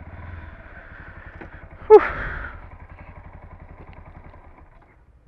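Yamaha WR155's single-cylinder engine idling with a low, even pulse, then dying away near the end. About two seconds in there is a brief, sharp, loud sound with a falling tone.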